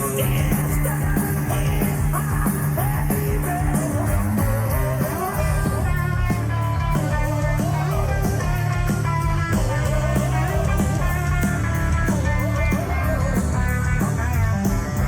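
Rock music with a singing voice over guitar and a steady bass line.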